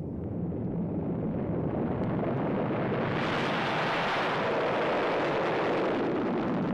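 A dense roar of noise with no clear pitch, swelling louder and brighter from about three seconds in, then holding.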